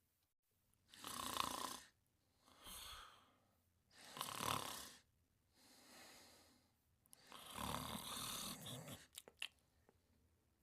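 Snoring in sleep: three snores, each followed by a softer breath out, with a couple of faint clicks near the end.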